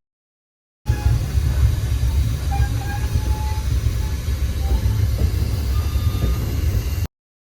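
Moving passenger train's steady low rumble and running noise, with a few faint brief squeals. It starts abruptly about a second in and cuts off sharply near the end.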